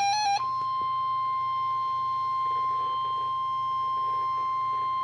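NOAA Weather Radio 1050 Hz warning alarm tone: a single steady high-pitched tone that starts about half a second in, as a warbling electronic tone breaks off. The tone signals that a weather alert message follows.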